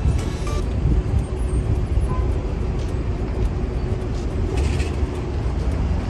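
A steady low rumble of outdoor background noise, level throughout.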